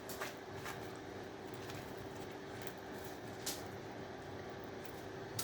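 A few short clicks and small handling noises as scrap parts are cut and pulled apart by hand, over a steady faint hum.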